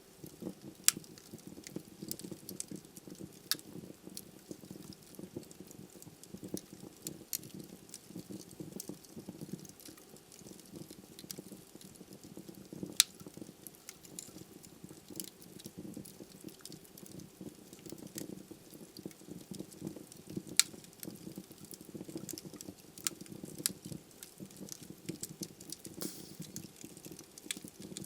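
Wood fire burning in a fireplace: a low steady rush of flames with irregular crackles and snaps, and a few sharper pops of burning logs.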